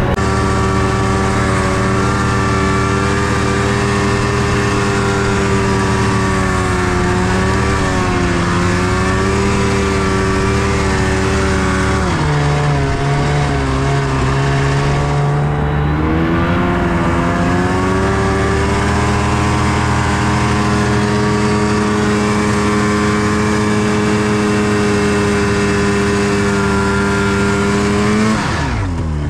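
Snowmobile engine running steadily under load. Its pitch drops about twelve seconds in, climbs back a few seconds later, and falls off sharply near the end as the engine slows.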